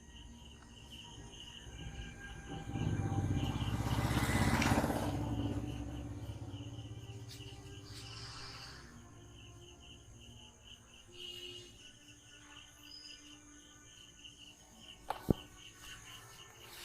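Insects chirping in a steady, even pulse. A few seconds in, a broad rush of noise swells up and fades away, and near the end there is a single sharp click.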